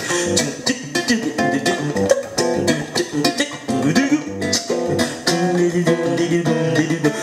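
Acoustic guitar strummed and picked in a quick, steady rhythm, playing chords with no singing over it.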